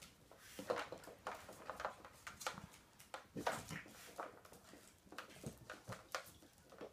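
Raccoons calling in short, irregular bursts of chittering and squealing as they squabble at close quarters.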